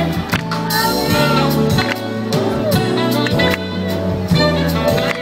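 Live soul band playing, with a man singing lead over electric guitars, bass and a steady drum beat.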